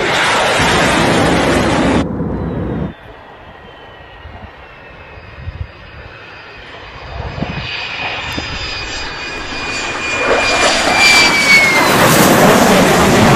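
Fighter jet engine noise from spliced clips. A loud jet roar cuts off abruptly about two to three seconds in. A quieter stretch follows, with a high whine slowly falling in pitch, and then a jet roar builds up loud again over the last few seconds.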